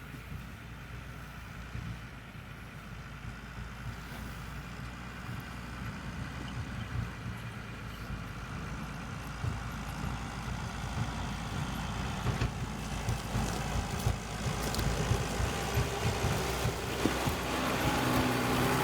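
Farm harvest machinery engine running with a dense low rumble that grows gradually louder, with scattered knocks and rattles in the second half.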